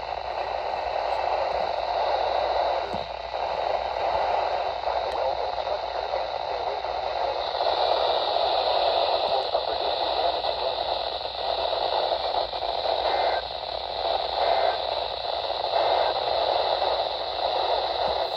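Radio static: a steady hiss from a radio receiver picking up no programme, its tone turning sharper and thinner about halfway through.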